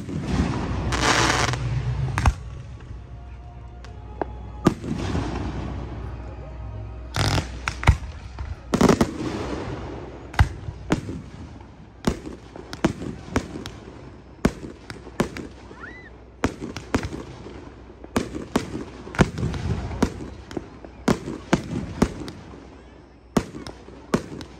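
Aerial fireworks going off: shells bursting with sharp bangs, with crackling hiss between them. The bangs come much more often from about halfway on.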